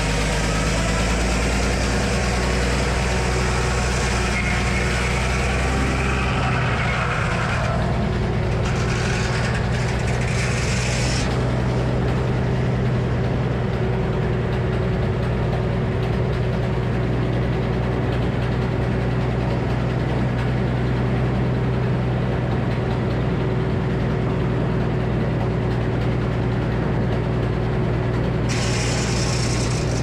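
Old Frick circular sawmill sawing a locust log: the big circular blade cuts through the wood for about the first eleven seconds over the mill's steady low drone. The cutting noise then stops and the blade spins free, and near the end it bites into the log again.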